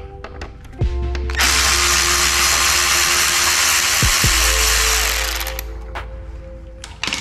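Cordless power driver with a 3 mm hex bit running for about four seconds, then fading out, while backing out one of the controller's top bolts. A few sharp clicks come before and after it.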